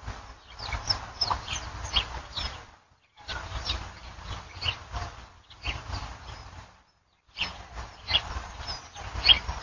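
Birds chirping in many short, quick notes over a low rumble. The sound cuts out completely twice for a fraction of a second.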